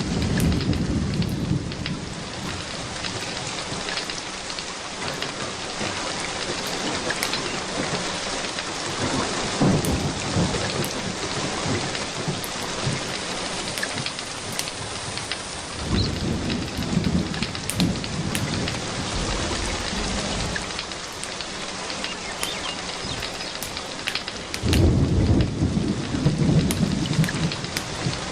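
Steady rain with rolling thunder that rumbles up four times: at the start, around ten seconds in, for several seconds from about sixteen seconds, and loudest near the end. Scattered sharp little clicks run through the rain.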